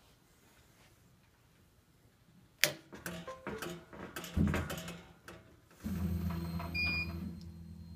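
A 50 W CO2 laser engraver powering up: a sharp click of the power rocker switch about two and a half seconds in, then a few seconds of motor whirring and clicking, settling from about six seconds into a steady low hum.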